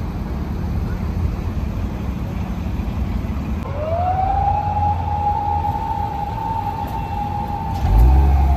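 Low rumble of a Toyota GR86's flat-four engine as the car creeps along. About three and a half seconds in, a siren wail rises, holds at one pitch, then starts to fall away. Near the end the engine rumble gets much louder with a rev.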